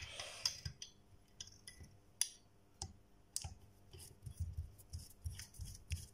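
Faint handling sounds of a screw and ring-lug wire terminal being fitted to a welder's rectifier heatsink with a screwdriver: a brief scrape at the start, then scattered sharp metal clicks, and soft low knocks near the end.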